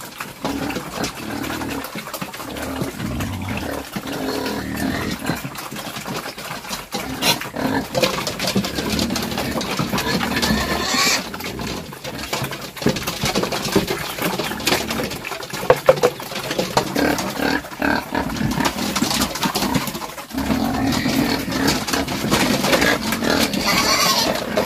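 Domestic pigs squealing and grunting loudly and without a break, several animals at once.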